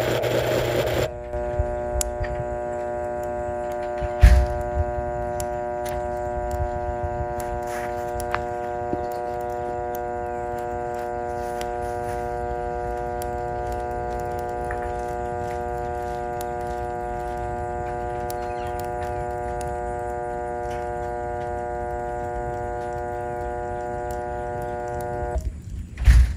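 Hamilton Beach 10-speed blender motor, no longer spinning freely, giving a steady electrical hum as it burns out, with one sharp knock a few seconds in. The hum cuts off suddenly about a second before the end as smoke rises from the drive coupling.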